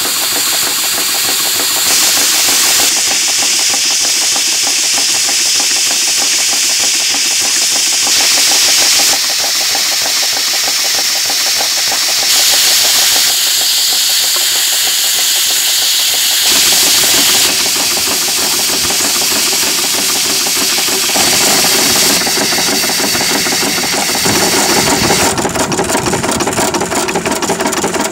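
4-inch scale Burrell steam traction engine running in steam, with rapid, even exhaust beats and a steady hiss of steam from the safety valves blowing off. The beat grows stronger and more regular near the end.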